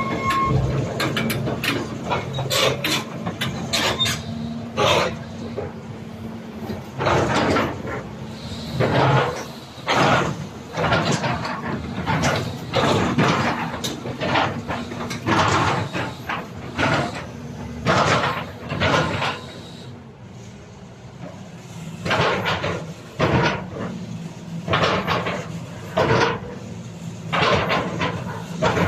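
Cat 320D crawler excavator at work: its C6.4 diesel engine running steadily, with repeated clanks and creaks from the arm, bucket and hydraulics about every one to two seconds.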